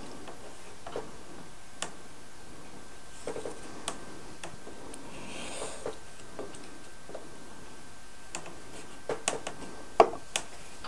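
Light clicks and taps of thin laser-cut plywood keel parts being handled, pressed together and pegged on a tabletop, with a short soft hiss of glue squeezed from a plastic bottle. There is a sharper knock about ten seconds in.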